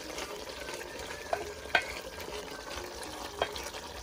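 A spoon stirring a thick, reduced soup in a metal saucepan, with the steady low sizzle of the simmering soup and three light knocks of the spoon against the pot.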